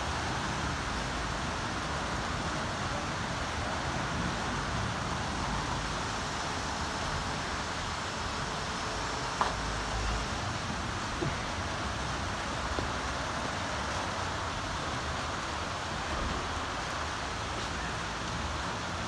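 Steady rain falling, an even hiss, with a single sharp tick about nine seconds in.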